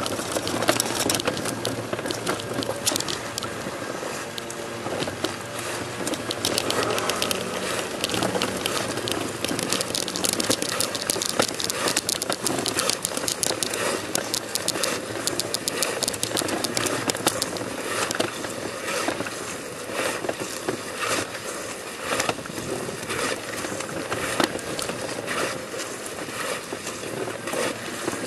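Dense crackling and scraping of a person crawling on his belly across stone paving, over a steady outdoor background hiss; the crackles come thickest through the middle and thin out toward the end.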